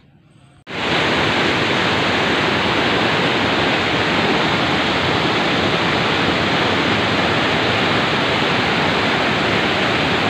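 Swift river rushing over boulders in white-water rapids: a loud, steady rush of water that starts abruptly about a second in.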